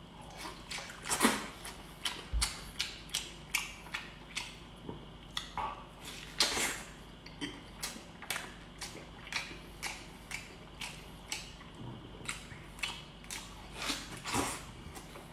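Close-up mouth sounds of chewing beef knee bone meat and tendon: wet smacks and clicks, roughly two a second, in an uneven rhythm.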